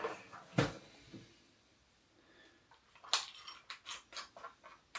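A metal spoon working in a bowl of cereal and milk: one soft knock about half a second in, then from about three seconds a run of light clicks and taps against the bowl.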